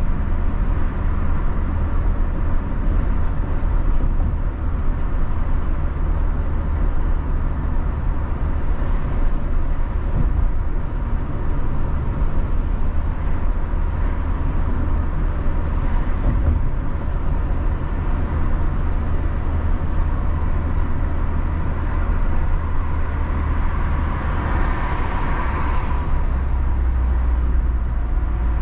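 Steady road and engine noise of a moving car heard from inside the cabin, a deep rumble under a constant hiss. Near the end the hiss briefly swells louder.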